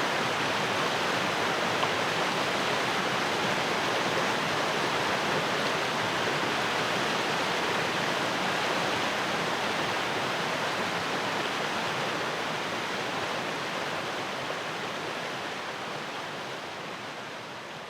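Strong-flowing stream rushing steadily, a dense even water noise that fades out gradually over the last few seconds.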